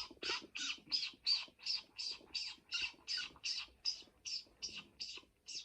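A person imitating a chicken chick with the voice: a fast, even run of short, high peeps, about three a second.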